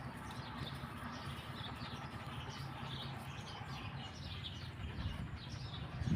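Birds chirping, with many short, scattered chirps over a steady low outdoor hum.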